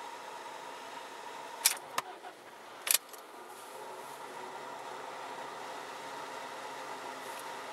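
Car engine started with the ignition key: a few sharp clicks and a short burst about two to three seconds in, then the engine idling steadily with a low hum.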